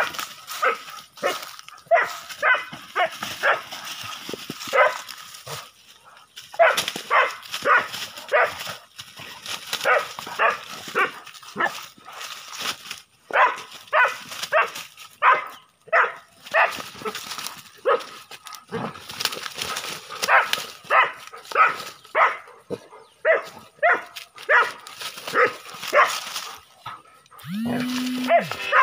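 Dobermans barking hard and repeatedly at a snake, in quick volleys of about one to two barks a second. Music comes in near the end.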